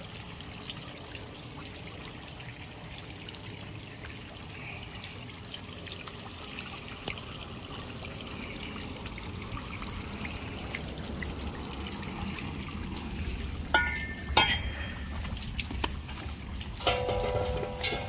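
Steady rushing background noise, with two sharp metal clinks about fourteen seconds in as a loose stainless motorcycle exhaust is handled by its hanger hook.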